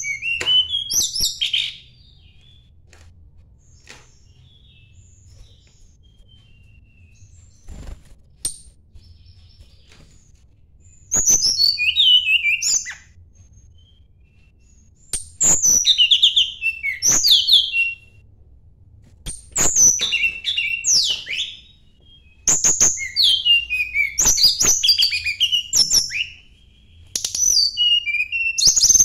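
A tledekan gunung songbird singing in separate phrases of quick, varied chirps and falling whistled notes, each phrase lasting one to three seconds with pauses between. After the first phrase there is a long lull of about nine seconds, and then the phrases come more often.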